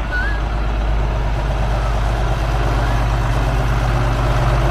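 John Deere 4440's turbocharged six-cylinder diesel engine running steadily, growing a little louder toward the end. The freshly rebuilt engine is being run to burn the carbon out.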